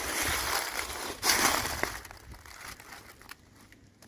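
Footsteps crunching through a thick layer of dry fallen leaves, loudest in the first two seconds, then dying down to a few small crackles.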